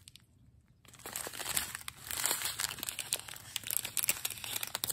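Small zip-lock plastic bags of diamond-painting drills crinkling as they are handled, starting about a second in and going on as dense crackling with many small clicks.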